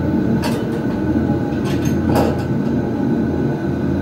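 Steady low mechanical rumble and hum of a submarine dark-ride vehicle under way, with a few light clicks and a single clunk about two seconds in.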